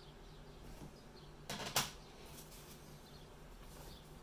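Brief rustle ending in a sharp plastic clack about a second and a half in, from PSA graded-card slabs and their packaging being handled.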